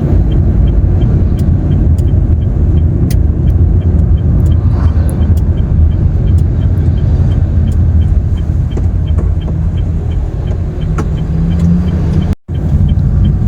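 Car driving, heard from inside: a steady, loud low road-and-engine rumble, with a faint regular ticking over it.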